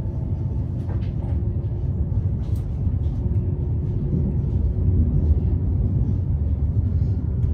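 Steady low rumble of a Lastochka electric train running at speed, heard from inside the carriage: wheels on the rails and the running gear, with a faint steady hum and a few light clicks.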